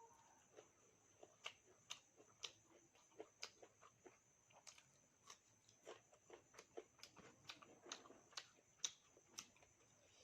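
Faint close-up eating sounds: chewing with a quick, irregular run of sharp wet mouth clicks and smacks.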